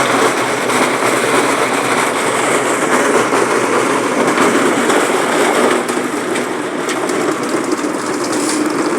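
Loud, steady noise of machinery running, holding even throughout.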